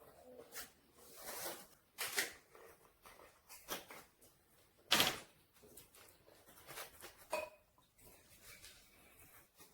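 Eating and handling food at a table: a run of short, scattered crunches, clicks and rustles, the loudest a sharp noise about five seconds in.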